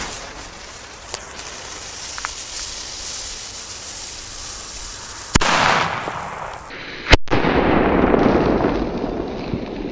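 A Dumbum Black Edition firecracker (F2 Böller) going off on a paved path. There is a sharp crack about five seconds in, then the loudest bang about seven seconds in, followed by a loud rush of noise.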